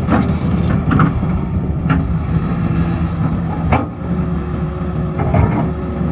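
Tata Hitachi excavator's diesel engine running steadily under work, with a few short knocks or clanks; the sharpest comes a little before four seconds in.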